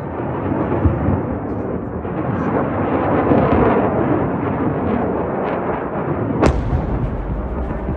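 Explosions at an airstrike site: a continuous heavy rumble, with a thud about a second in and a sharp crack about six and a half seconds in.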